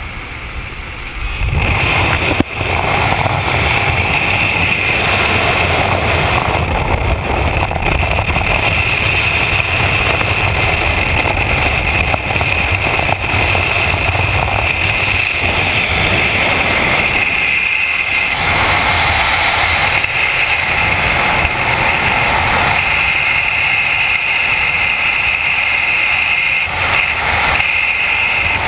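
Loud, steady wind rush and the engine and propeller of a small high-wing jump plane at its open door, then the rush of freefall wind on a helmet camera as the skydivers exit.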